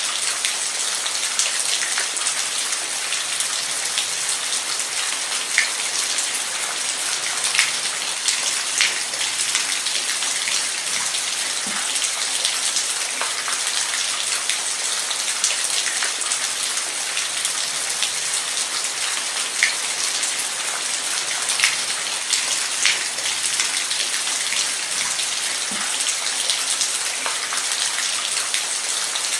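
Steady rain falling, an even hiss with many individual drops pattering and ticking on a surface.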